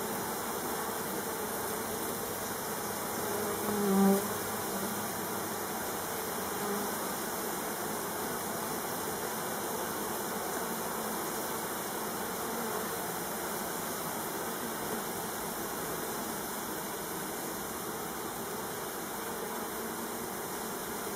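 A dense mass of honeybees buzzing steadily, with one brief louder hum about four seconds in.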